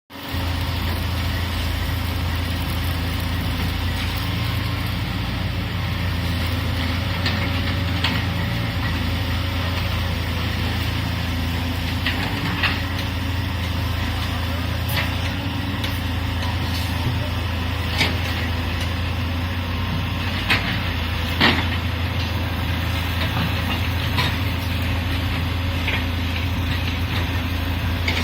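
Excavator diesel engine running steadily with a low drone, with sharp knocks now and then, about ten of them, the loudest around twenty-one seconds in.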